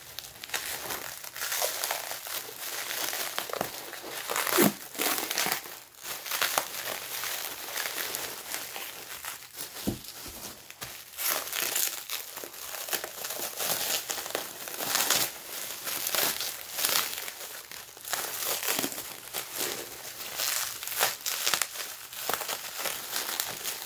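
Packing wrap crinkling and rustling as hands unwrap a packed item, with sharper crackles now and then.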